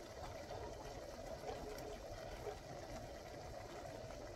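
A pot of gravy simmering on the stove: a steady, low bubbling with a few faint clicks.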